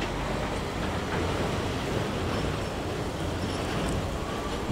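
KLM Airbus A330-203 twin-engine airliner on final approach with its landing gear down, its jet engines giving a steady rumbling roar.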